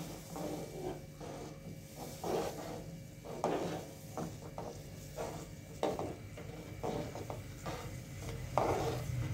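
A slotted metal spoon stirring and scraping in a metal kadai of boiling water as wheat rava is poured in and mixed, giving irregular soft swishes and scrapes.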